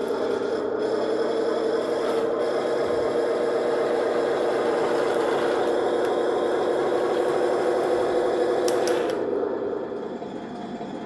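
A 1:16 3D-printed RC E-100 tank model running, making a steady grinding rasp that eases off about nine seconds in.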